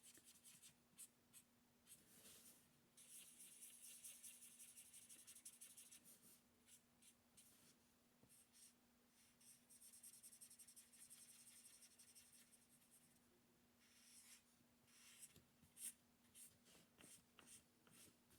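Faint scratching of drawing on paper, in stretches of a few seconds with small ticks and taps between them, over a faint low steady hum.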